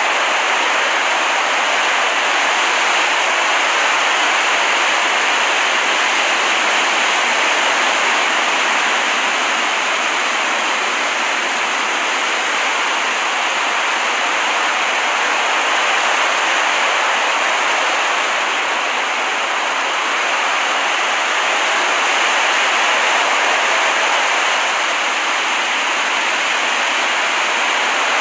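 Steady, even rush of ocean surf from a relaxation-app beach recording, with no distinct wave breaks standing out.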